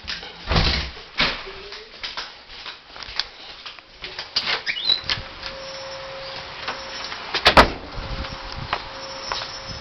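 A series of irregular knocks and clicks, with a short rising squeak about four and a half seconds in and a louder clatter of knocks about seven and a half seconds in, over a faint steady hum.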